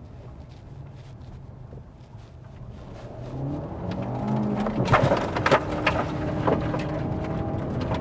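Fiat Argo Trekking's 1.3 FireFly four-cylinder engine running quietly at first, then revving up from about three and a half seconds in as the car is driven off-road. From about five seconds in, a series of sharp knocks comes over the engine.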